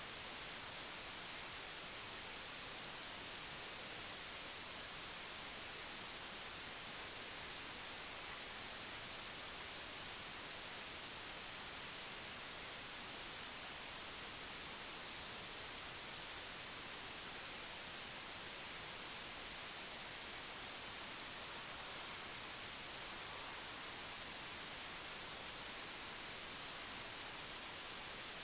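Steady static hiss, even and unchanging throughout, brightest in the high frequencies, with no other sound standing out.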